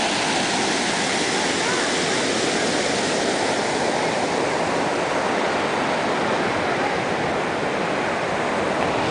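A small waterfall cascading over rock ledges: steady, even rushing of falling and churning water.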